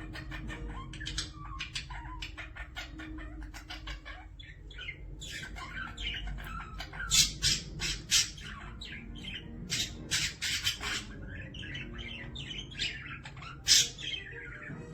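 Cockatiel calling in a long run of short, sharp chirps and squawks, with a few louder squawks around the middle and near the end.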